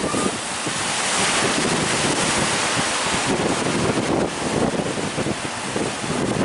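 Heavy sea surf with waves breaking, and wind buffeting the microphone. There is a swell of surging water about a second in.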